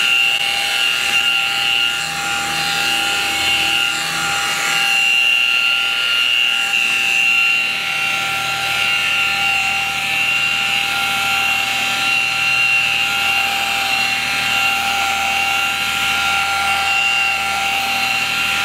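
High-speed variable-speed rotary buffer running steadily, its foam pad polishing swirl mark remover into car paint; the motor gives a constant whine.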